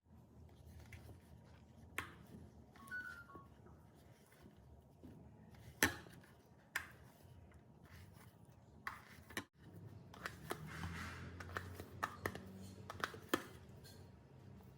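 Scattered light taps and clicks, about a dozen, with a short ringing ping about three seconds in and a busier run of small clicks near the end.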